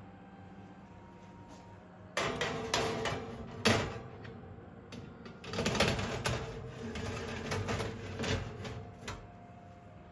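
Clattering and rustling of objects being handled, starting about two seconds in, with a sharp knock shortly after and a second stretch of clatter in the middle.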